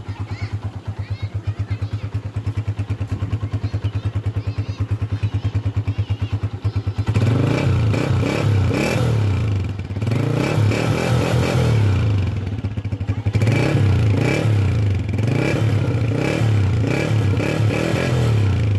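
125 cc single-cylinder four-stroke motorcycle engine idling with an even rapid beat, then revved up and let back down repeatedly from about seven seconds in.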